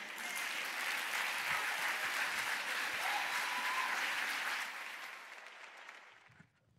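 Congregation applauding with steady, dense clapping that fades out over the last two seconds.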